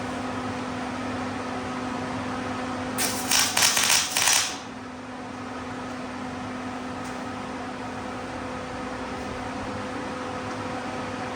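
A welding arc crackling for about a second and a half, a quick tack weld on a steel table leg, over a steady fan-like hum that runs throughout.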